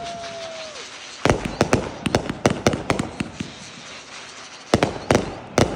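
Aerial fireworks going off: a short whistle falling in pitch at the start, then a run of sharp bangs and crackles from about a second in, easing off midway, and another cluster of loud bangs near the end.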